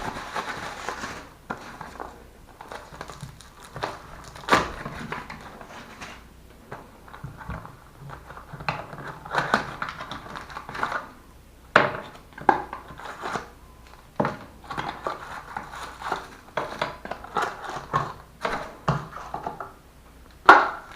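Packaging being opened by hand: crinkling and tearing, with scattered knocks and clicks as the contents are handled.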